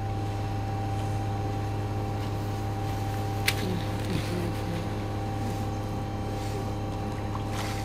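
Steady low mechanical hum with a faint steady higher tone above it, and a single sharp click about three and a half seconds in.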